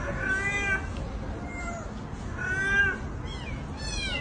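Cat meowing repeatedly: a string of short meows that rise and fall in pitch, the loudest about two and a half seconds in.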